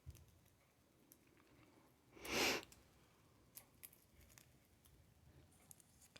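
Quiet, scattered small clicks and taps of a balut egg being handled and peeled, with one short breathy noise about two seconds in, the loudest sound.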